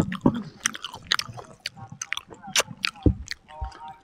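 Close-miked chewing and mouth smacking of grilled chicken and rice, an irregular run of sharp smacks with a couple of heavier, deeper bites about three seconds in.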